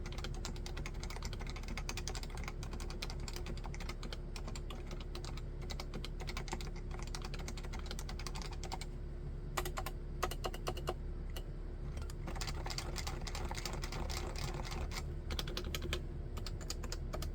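Continuous fast typing on a Leopold FC660C keyboard with Topre electrostatic capacitive switches, a dense run of soft keystrokes. About ten seconds in, a few louder, more separate strokes stand out.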